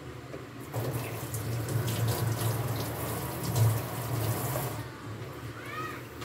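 Kitchen tap running into a sink, turned on about a second in and shut off about four seconds later.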